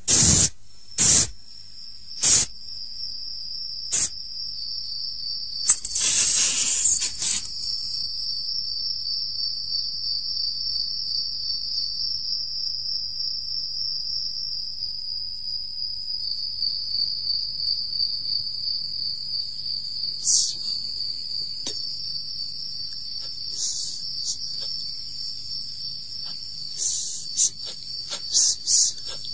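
Electronic sound effects of a sci-fi radio play. A steady high whine, like an insect trill, wavers slightly in pitch. Several short, sharp bursts of noise cut across it in the first seven seconds and a few more near the end.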